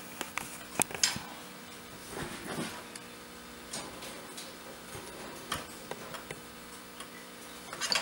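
Scattered light clicks and plastic knocks, the loudest about a second in, as the plastic push-pins of an Intel stock CPU cooler are snapped into the motherboard's mounting holes and given a turn to lock them.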